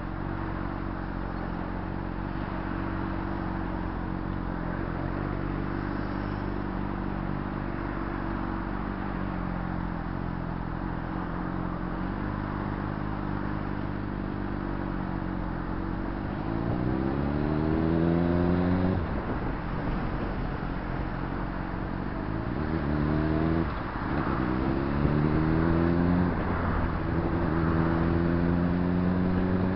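Honda CBR600RR's inline-four engine running at low, steady revs while creeping in traffic. From about halfway it revs up through the gears, its pitch rising and dropping sharply at each of several upshifts, then settles into a steady cruise near the end.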